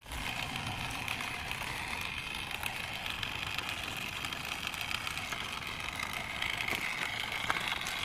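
Small electric gear motor of a toy RC dump truck whirring steadily as it drives over rocky dirt, getting a little louder near the end.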